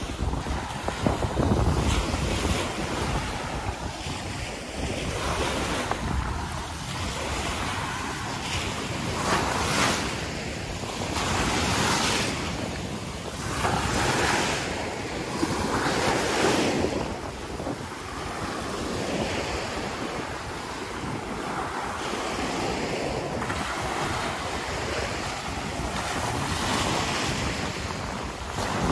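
Small waves breaking and washing up over a sandy beach, the foamy wash swelling and fading every couple of seconds, with wind buffeting the microphone.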